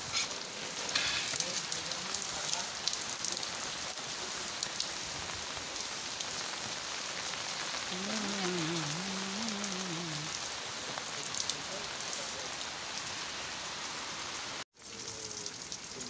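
Steady monsoon rain falling on grass and open ground, an even hiss with scattered close drops ticking. The sound cuts out for a moment near the end.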